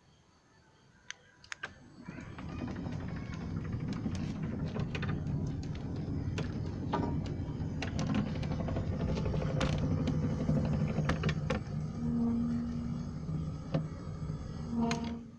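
Electric sliding-gate operator motor driving the wooden gate along its gear rack and track: a steady mechanical hum with a running clatter of small clicks. It starts about two seconds in after a couple of clicks and cuts off suddenly near the end as the gate stops.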